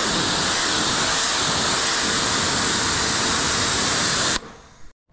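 Kärcher pressure washer spraying a jet of water, a steady loud hiss that stops suddenly about four seconds in.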